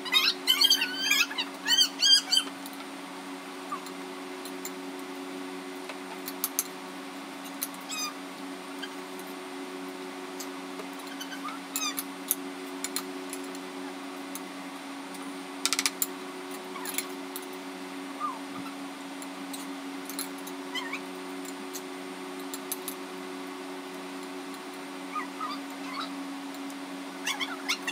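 A steady low electrical hum, with the light clink of metal spoons against china bowls now and then. In the first couple of seconds there is a loud run of high, wavering squeaks.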